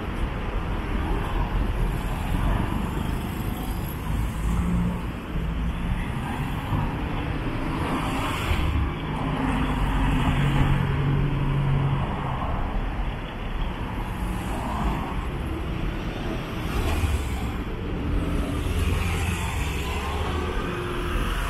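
City street traffic: cars and other motor vehicles running and passing, a continuous rumble with engine hum that swells and fades several times.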